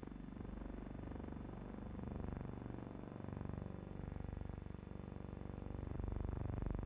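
Aircraft engines droning steadily with a fast throbbing pulse, heard from inside the cabin in flight; the level swells and dips slightly.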